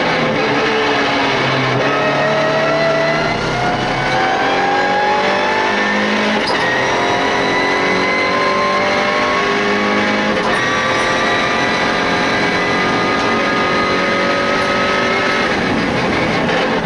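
MINI Challenge race car's engine heard from inside the cockpit, accelerating hard through the gears: the pitch climbs, drops at upshifts about six and ten seconds in, climbs again, then eases off near the end as the car slows for the next corner.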